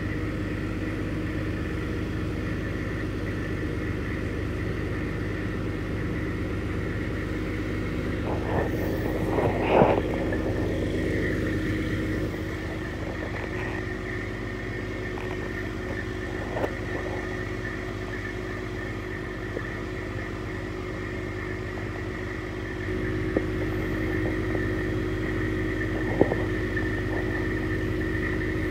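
Crane truck's diesel engine running steadily to power the hydraulic boom holding a suspended concrete septic tank, with a steady whine over the engine hum. Its level drops a little about twelve seconds in and comes back up later. A few short knocks sound through it, the loudest about ten seconds in.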